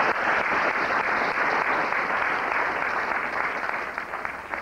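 Audience applauding, many people clapping together, dying away near the end.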